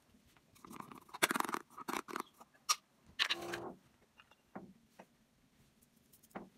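Handling noises as painting supplies are moved about on a plastic floor sheet: irregular rustling and scraping with light clicks, the longest scrape about three seconds in.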